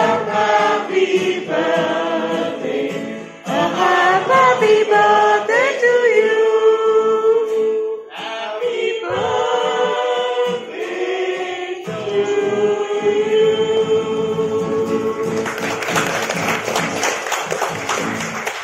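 A group of voices singing together in unison, accompanied by a strummed acoustic guitar, in sung phrases with brief breaths between them.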